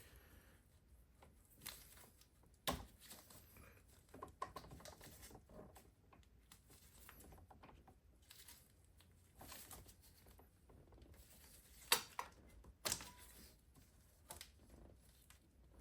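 Faint, irregular clicks and knocks of a hand wrench and metal engine parts while the timing belt tensioner is being worked loose. A few sharper taps stand out, one near the start and two close together about three-quarters of the way through.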